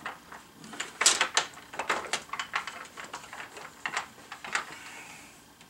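Wooden clacks and knocks from an Ashford 8-shaft table loom as its castle and shafts are worked back and down over a jog to fold it. Irregular sharp clicks throughout, loudest in a quick cluster about a second in.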